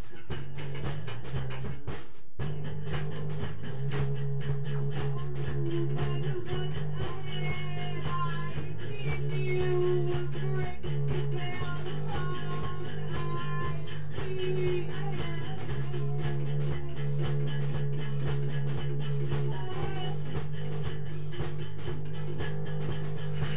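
Instrumental rock jam: drums keeping a steady beat under sustained bass notes, with single guitar notes picked out over the top through the middle.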